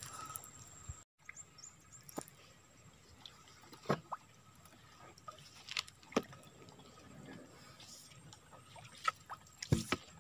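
Small boat being paddled along a still creek: faint water drips and trickles from the paddle strokes, with a few short sharp knocks about two seconds apart and two close together near the end.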